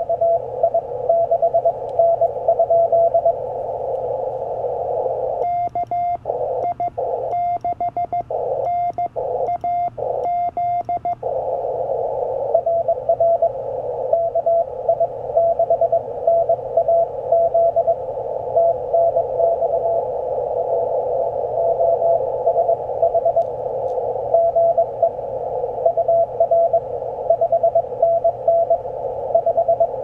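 CFT1 CW transceiver's speaker playing received Morse code: a single tone keyed on and off over a narrow band of receiver hiss. For several seconds a bit over five seconds in, the hiss cuts out between the elements and a cleaner keyed tone is heard, the radio's sidetone as a reply is sent on the paddle key.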